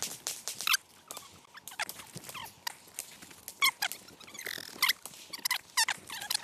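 Footsteps on gravel: irregular short, sharp crunches, a few a second, with a squeaky edge.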